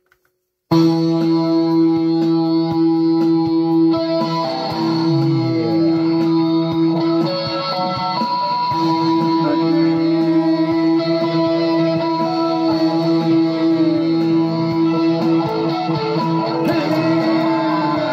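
Electric guitar played through effects, starting suddenly just under a second in: long held notes over a steady low drone, with notes sliding down in pitch a few seconds in and again near the end.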